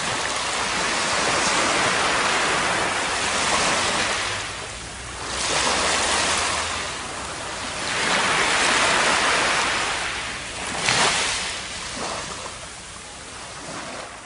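Surf washing up a sandy beach: a rush of water that swells and falls back several times, with one brief sharper burst about eleven seconds in, then quieter near the end.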